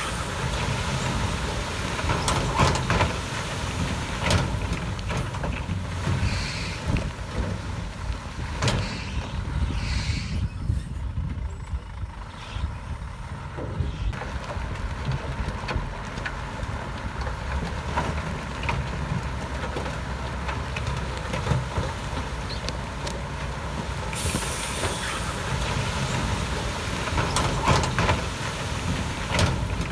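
Komatsu D68B crawler bulldozer's diesel engine running steadily under load, with scattered clanks and squeaks as it works. A hiss comes in about 24 seconds in and lasts a few seconds.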